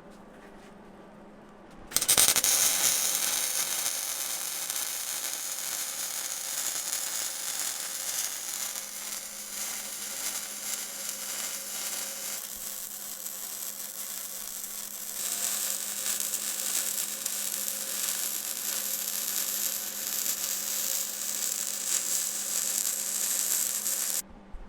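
MIG welder (solid wire with shielding gas) laying a weld on steel sheet: a steady crackling hiss that strikes up about two seconds in, eases for a few seconds midway, then runs on and stops just before the end.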